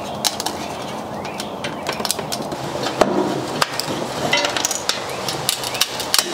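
A plastic spoke protector disc on a bicycle rear wheel being snapped apart and pulled off by hand. It gives an irregular string of sharp cracks and clicks, the loudest about three seconds in.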